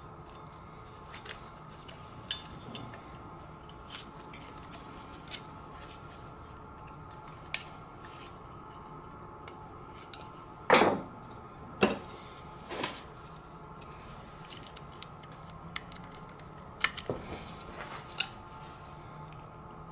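Light metallic clicks and taps as the cylinder of a Coleman 125 ATV engine is worked down over the piston onto the crankcase. Two louder knocks about a second apart come just past the middle, and a few sharp clicks come near the end, over a steady low hum.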